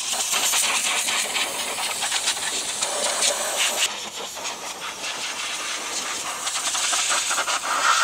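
High-pressure washer jet spraying water on a car's body: a steady hiss with fluttering spatter. It dips somewhat about four seconds in and builds again near the end.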